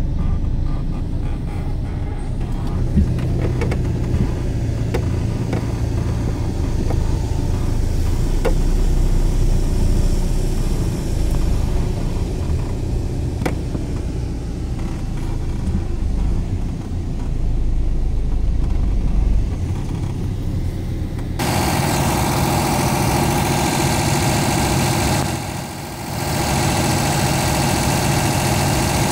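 Fahr M44 combine harvester's engine running with a low rumble as the machine is moved. About twenty-one seconds in the sound changes abruptly to the engine idling steadily, brighter and with more clatter and hiss.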